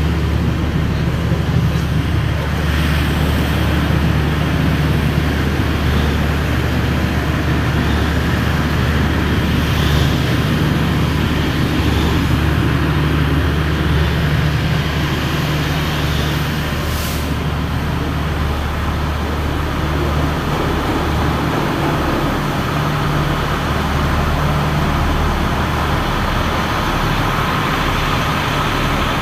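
A large vehicle engine idling, a deep steady hum that shifts slightly about two-thirds of the way through.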